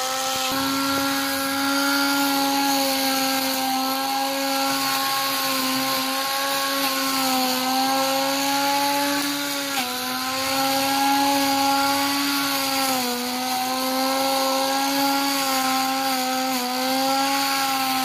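Electric hand angle grinder converted into a grass cutter with a rubber-strip blade, running continuously with a steady whine. Its pitch sags briefly a few times as the blade cuts into the grass, about ten and thirteen seconds in, then recovers.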